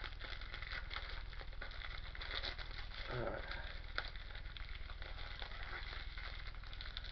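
Plastic shrink-wrap being picked and peeled off a Blu-ray case: a continuous run of small crinkles and crackles.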